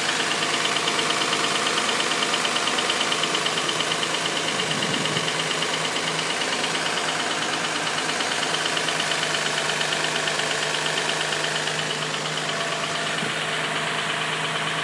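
Infiniti G35's 3.5-litre V6 idling with a rapid, steady knocking-type tick over the running note. The owner fears it is the knock of an engine with an oil-consumption problem, though the car has passed the oil consumption test twice.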